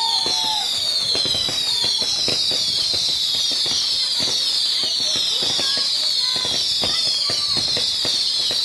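Fireworks display: a dense run of overlapping high whistles, each falling in pitch, about two a second, over steady crackling and popping.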